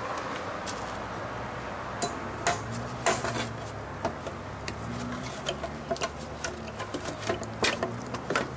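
Irregular knocks and clicks of wooden treehouse planks and beams as a person climbs down through them, thicker from about two seconds in, over a low steady hum.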